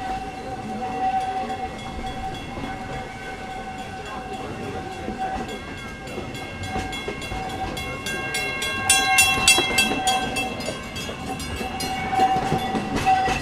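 Steam train running on its track, with a steady running noise and one constant high ringing tone. From about eight seconds in, the locomotive's whistle sounds as a chord of high tones over rapid clicking from the wheels, loudest around nine to ten seconds.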